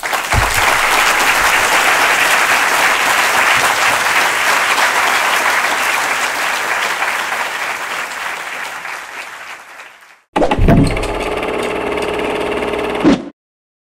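Large audience applauding for about ten seconds, slowly fading out. After a short gap, a brief musical logo sting begins with a deep thump and cuts off sharply about three seconds later.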